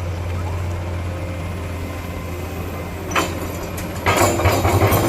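Heavy-equipment diesel engine running steadily at a low idle. A little past three seconds comes a single sharp knock, and about four seconds in a louder clattering noise sets in over the engine.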